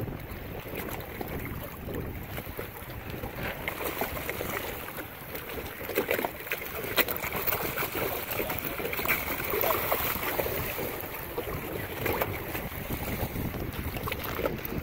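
Wind buffeting the microphone over open water, with choppy splashing as sharks thrash and bite at a bonito held at the surface; the sharpest splashes come around the middle and again later on.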